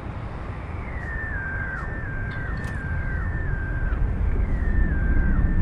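A repeating high tone that steps down in pitch, sounding about every three quarters of a second from about a second in, over a low rumble that grows louder.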